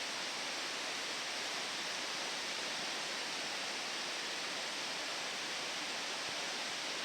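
Steady, even rush of the Cline River's flowing water.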